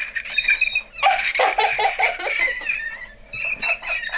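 A child giggling and laughing in short, high-pitched bursts.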